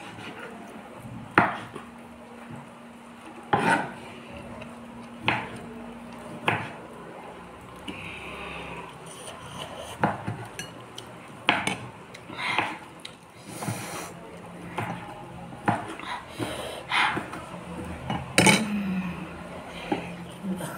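Metal fork clinking and scraping against a glass bowl while noodles are twirled and lifted out, in sharp irregular clinks about every second or two.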